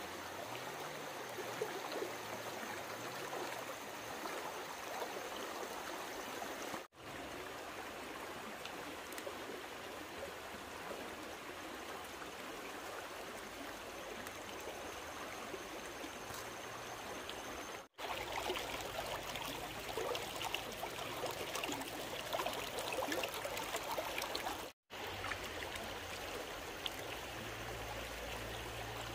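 A stream of water rushing and trickling steadily, cutting out briefly three times.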